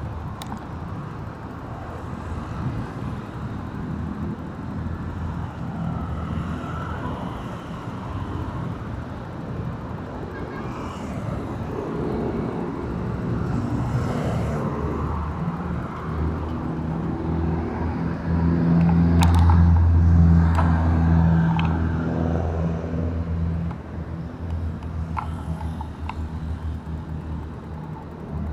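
Busy city road traffic: engines and tyres running together without a break. A large vehicle's engine close by grows loud about two-thirds of the way through, then drops back a few seconds later.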